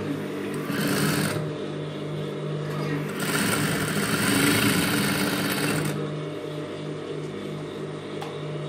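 Industrial single-needle sewing machine stitching fabric in two runs, a short one of about a second near the start and a longer one of about three seconds in the middle, over a steady low hum.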